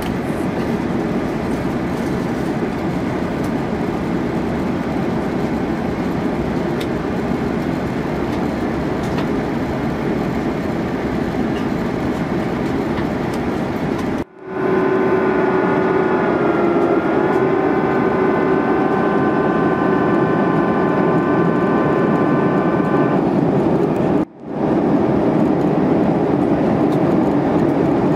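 Steady in-cabin rush of an Airbus A340-300 in flight on descent, airflow and its CFM56 engines heard from a window seat over the wing. In the middle stretch a steady whine of several tones rides over the rush and dips slightly in pitch once. The sound drops out briefly twice.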